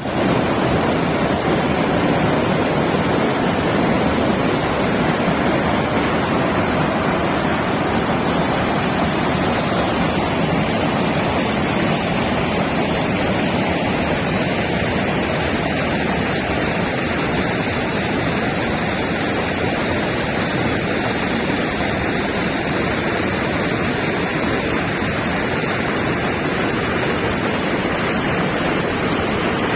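Steady rushing water, an even roar with no breaks.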